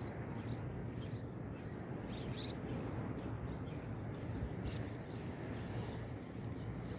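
Steady low rumble with a hiss over it on open water, with a few faint, short high chirps scattered through.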